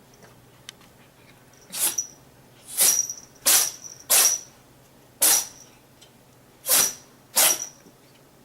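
A cat sneezing seven times in a row, sharp sneezes spaced about half a second to a second and a half apart. It is a sneezing fit from chronic sinus trouble, the cat trying to dislodge mucus.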